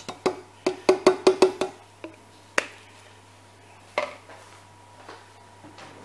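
Cream glugging out of a nearly empty carton into a glass measuring jug: a quick run of about five hollow glugs. Then a sharp click and a knock a second or two apart.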